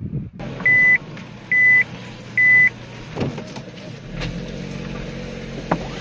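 Three short, high electronic beeps evenly spaced just under a second apart, like a vehicle's warning beeper, over a noisy background; a steady low engine hum comes in about four seconds in.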